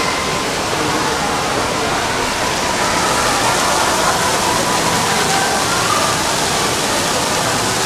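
Crowd babble of many voices over a steady rushing noise, with no single sound standing out.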